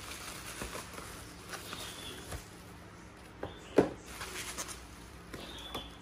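Bubble wrap and a cardboard mailer box rustling and crinkling as a parcel is unpacked by hand, with one sharper knock a little before four seconds in.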